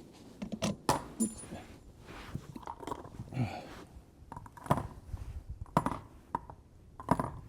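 Scattered light clicks, knocks and rattles of handling at the rifle, a dozen or so irregular short sounds with no shot fired.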